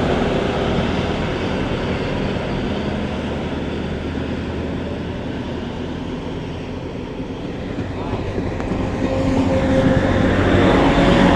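Train running steadily, a little quieter in the middle and growing louder again near the end.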